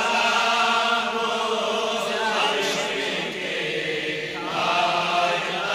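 Slow devotional chanting of a Kashmiri salam to the Prophet: long, drawn-out sung notes of a melodic refrain, with a short break about midway.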